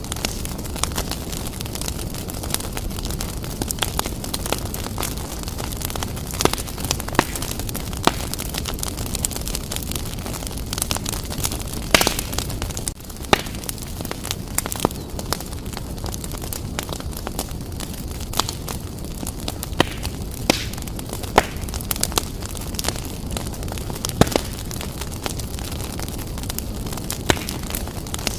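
Wood fire burning briskly in a fireplace: a steady low rumble with frequent sharp crackles and pops, the loudest pop about twelve seconds in.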